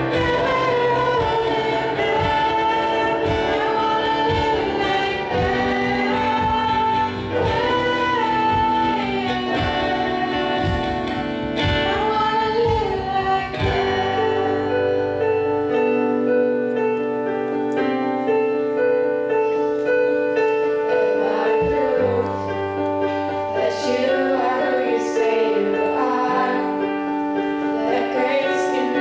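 Live youth band playing a song: girls singing together into microphones over a drum kit, electric guitar and keyboard. About halfway through, the drums drop out and the keyboard carries on with held chords. Near the end the singing comes back in.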